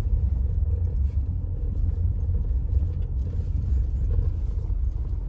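Low, steady rumble heard inside a vehicle's cabin as it drives along a gravel dirt road: tyre and road noise with the engine running underneath.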